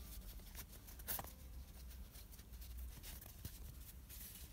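Faint rustling and scratching of chunky T-shirt yarn as a crocheted piece is handled and its yarn tail is drawn under the stitches with a large-eye needle, with a sharper scrape about a second in.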